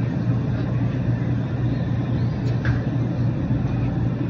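Steady low machine hum with a rumble under it.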